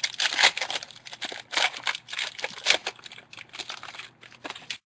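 Trading-card pack wrapper being torn open and crinkled by hand, an irregular run of crackles and rustles that cuts off suddenly near the end.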